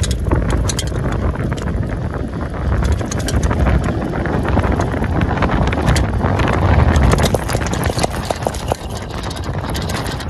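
Wind buffeting the microphone while riding a Nakto Camel electric bike along a paved road, with road noise and frequent rattling clicks from the bike.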